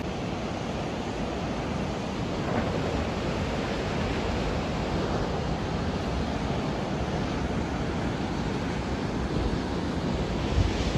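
Steady wash of ocean surf breaking on a beach, mixed with wind blowing across the microphone.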